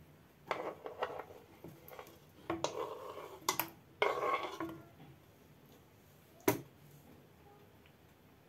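A metal fork scrapes tomato slices across a wooden cutting board into a non-stick frying pan, in three short bouts of scraping and clatter as the slices drop in. Later comes one sharp knock of utensil against board or pan.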